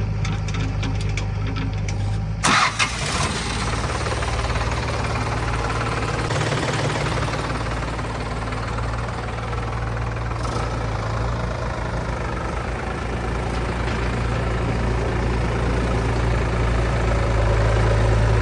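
Heavy diesel engine of earthmoving or farm machinery running steadily. A brief loud knock comes about two and a half seconds in.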